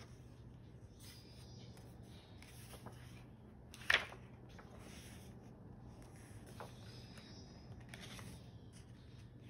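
Paper pages of a paperback photobook being handled and turned: soft rustling, with one sharp page flap about four seconds in.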